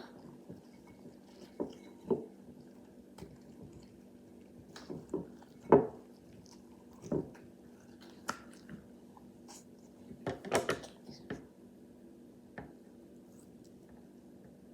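Scattered light handling noises: a dozen or so short, soft clicks and taps, a little louder about six seconds in and around ten seconds in, over a faint steady hum.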